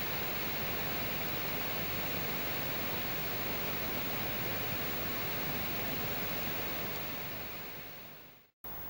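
Steady rush of a river swollen with rain, tumbling over rocks and fallen logs. It fades out near the end and cuts off.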